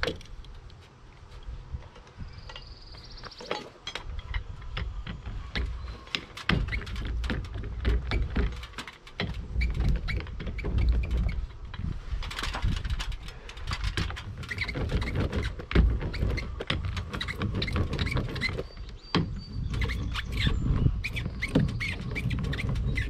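Hand tape roller being worked over ZIP System flashing tape on a window sill, giving a low rolling rumble under a dense, irregular crackle of clicks as the tape is pressed down.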